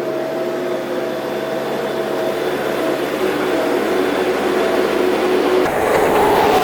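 Skid steer engine running at a steady pitch, growing louder and rougher near the end.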